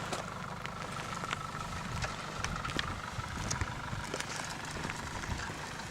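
Off-road vehicle's engine running steadily, a low rumble with scattered small clicks over it.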